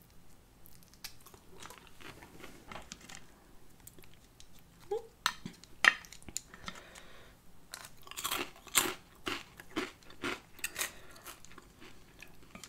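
Close-miked eating sounds: a person chewing shrimp and spicy ramen noodles, faint for the first few seconds, then louder short crunchy bites and chews from about five seconds in.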